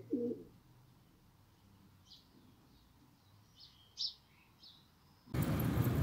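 Domestic pigeons cooing briefly at the start, then a few faint, high, short chirps. Near the end a loud, steady rush of noise starts abruptly.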